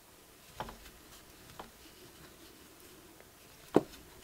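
Soft handling sounds of crocheting with a metal hook and acrylic yarn: faint rustling with three small clicks, the last and loudest near the end.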